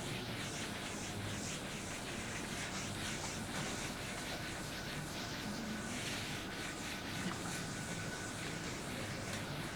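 Writing: a run of short scratching strokes against a steady hiss of room noise.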